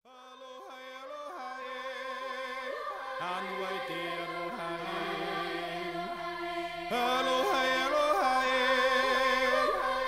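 Background music fading in: a song opening with chanted vocals over a held low note, stepping up in loudness about seven seconds in.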